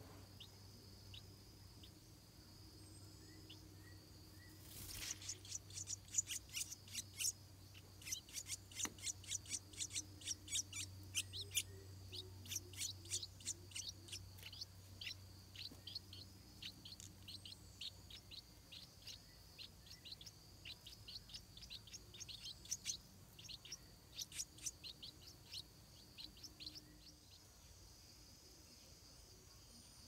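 Stripe-throated bulbuls chirping at the nest: a fast series of short, high chirps, a few a second, starting about five seconds in and thinning out near the end. A steady high insect drone sounds behind them.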